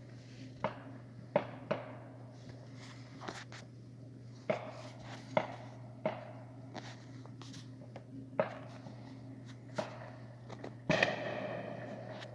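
Fireworks going off at a distance: irregular sharp bangs and pops about a second apart, with a louder bang near the end that rings out for about a second, over a steady low hum.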